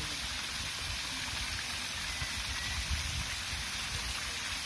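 Steady hiss of falling water, with an uneven low rumble underneath.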